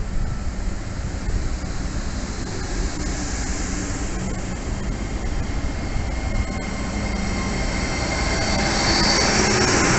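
GWR Class 800 bi-mode train (unit 800 017) running along the platform, a steady rumble of wheels and running gear that grows louder over the last few seconds. A high wheel squeal comes in near the end.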